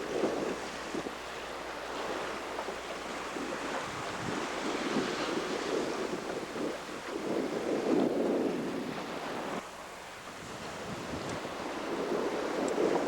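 Sea water rushing and splashing along a sailing yacht's hull under way, with wind buffeting the microphone. It swells and eases every few seconds.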